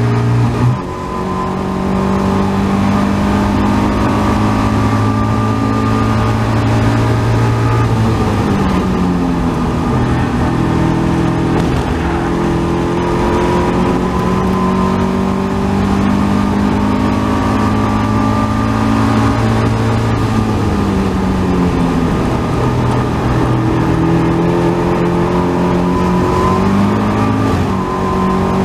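Onboard sound of a Caterham 270R's 1.6-litre Ford Sigma four-cylinder engine at racing speed, with a quick drop in revs about a second in as it shifts up. Several more times the revs fall and climb back, and wind rushes steadily over the open cockpit.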